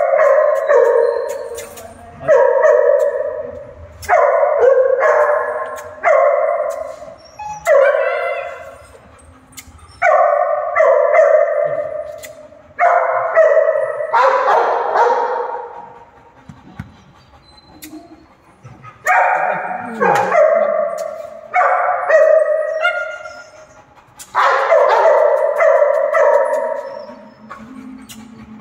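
Beagle baying over and over: a string of drawn-out barks, each about a second long and sliding down in pitch as it fades, some coming in quick pairs, with short pauses between.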